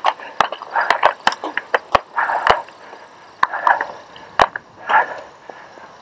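Cyclocross bike rattling over rough grass: irregular sharp knocks and clicks from the bike, with short rushes of noise about every second.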